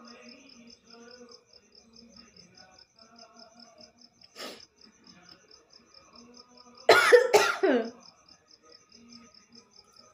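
A woman's forced sneeze attempt about seven seconds in: two quick explosive blasts with a voiced tail falling in pitch, more cough than sneeze. Crickets chirp steadily in the background.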